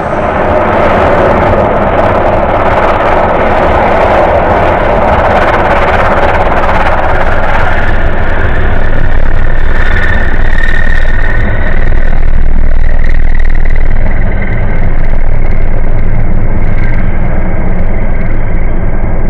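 Super Scooper water bomber skimming the surface to scoop water: its propeller engines running with the rush of water and spray against the hull, a loud, steady roar.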